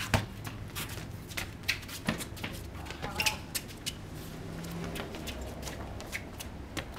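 Basketball dribbled on a concrete driveway, a few sharp bounces, with sneakers scuffing and shuffling on the concrete as players move around the hoop.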